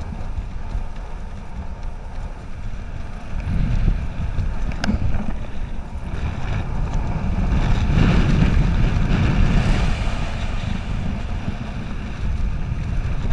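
Wind buffeting the handcam's microphone during a parachute descent under canopy: a loud, steady rumble that swells a little past the middle, with one faint click about five seconds in.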